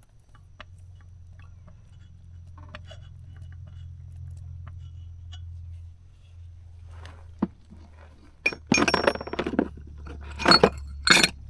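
Metal parts clinking and scraping as a trailer wheel hub and its bearing are handled during a grease repack: scattered light clicks, then a run of louder clatters in the last few seconds, over a low steady hum.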